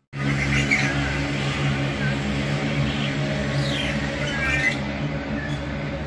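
Long-tailed shrike calling in short high notes, quick falling whistles and a brief run of chatter. Under it runs a steady low engine-like hum.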